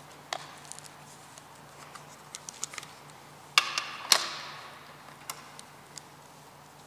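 Small clicks and rustles of a lectionary being handled at a lectern close to the microphone, with two louder knocks about three and a half and four seconds in, the second ringing out briefly.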